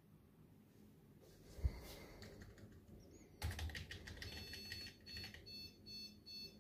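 Electronic beeping from the computer as it boots: a high tone, steady for about a second, then broken into short beeps about three a second, after a run of clicks and a single thump about two seconds in.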